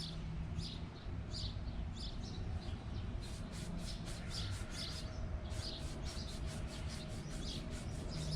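Red Scotch-Brite pad scrubbing a steel hydraulic flat-tappet lifter: quick, scratchy rubbing strokes, in runs of about five a second from about three seconds in.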